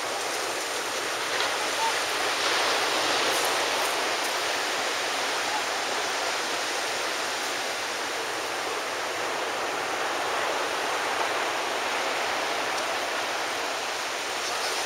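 Steady hiss of surf washing along the beach, an even rush of water noise without breaks.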